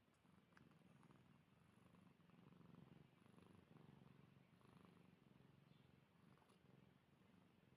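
Sleeping domestic cat purring faintly, a low continuous rumble that swells and eases with its breathing.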